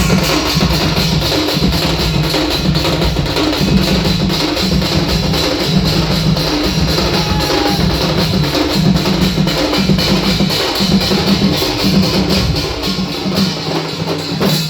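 Instrumental music led by drums and percussion, with a fast, steady repeating beat; it cuts off at the very end.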